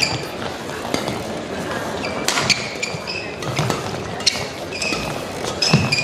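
Badminton shuttlecock struck back and forth by rackets in a fast doubles rally, with a sharp hit every second or so. Short high squeaks from players' shoes on the court are mixed in, over steady crowd noise in the hall.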